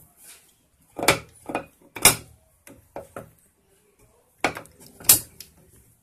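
Metal parts of a Whirlpool washing machine transmission clacking and knocking as the rack is worked left and right against the pinion gear to seat it: about eight short, irregular clacks, the loudest about one, two and five seconds in.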